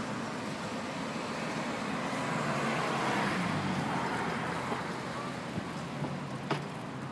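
Road traffic: cars driving past on a busy urban road as a steady rush of engine and tyre noise. One passing car swells to the loudest point about three seconds in. A few short clicks come near the end.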